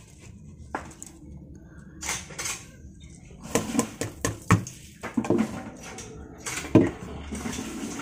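A bowl of small dark seeds tipped out onto a woven bamboo tray. The bowl knocks and scrapes against the tray several times as the seeds spill out.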